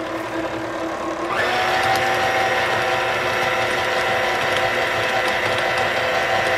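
KitchenAid stand mixer running with its flat beater turning through chopped onion and egg in a stainless steel bowl. The motor whine steps up in pitch and gets louder about a second and a half in as the mixer speeds up, then holds steady.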